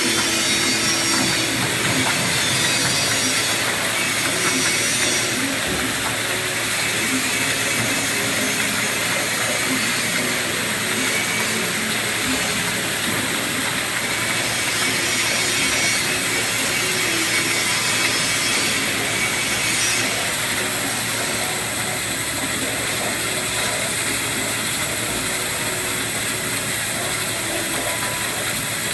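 CNC waterjet cutter cutting through a metal sheet: the high-pressure jet makes a loud, steady hiss. The upper edge of the hiss softens and returns every several seconds as the head travels along the cut.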